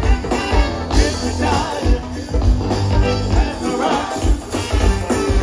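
Live funk band playing: a steady bass line and drum beat with electric guitars, saxophone and hand percussion, and a voice singing over the top.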